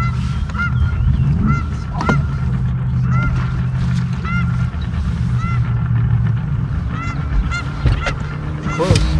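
Geese honking over and over, short arched calls about one or two a second, with a louder falling call near the end, over a steady low hum.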